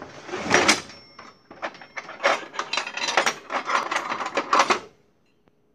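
Rapid, irregular clicking and rattling of metal being handled, which stops abruptly near the end.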